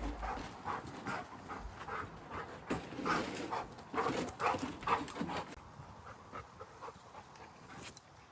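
A dog panting hard in quick, rhythmic breaths, hot from chasing; loudest around three to five seconds in.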